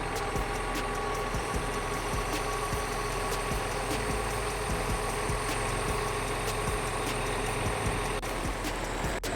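Tractor engine idling steadily, with faint regular ticking over its hum.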